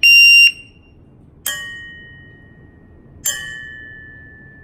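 APSC shot timer giving its start beep, a loud high tone lasting half a second, then the steel plate of its electronic target tapped with a rod twice, about a second and a half and three seconds in, each hit ringing and slowly fading as the timer registers it.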